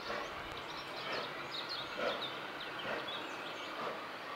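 Steam locomotive working slowly, its exhaust beats coming about once a second over a steady hiss, with small birds chirping.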